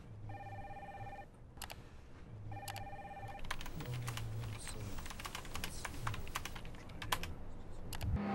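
A telephone rings twice with a trilling electronic ring. After the second ring, someone types quickly on a computer keyboard, a fast run of key clicks.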